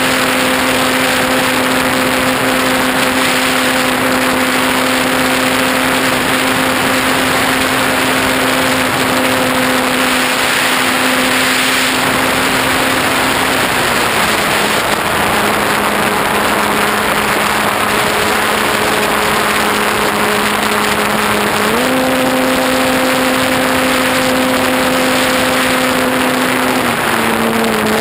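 Electric motor and propeller of a ParkZone T-28 Trojan model airplane in flight, a steady buzzing hum over heavy air rush on the microphone. The motor speed and pitch drop about halfway through, rise again a few seconds before the end, and dip briefly near the end.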